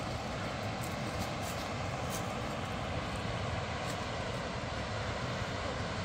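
Steady rushing of a fast mountain river running over rapids, an even noise that doesn't change.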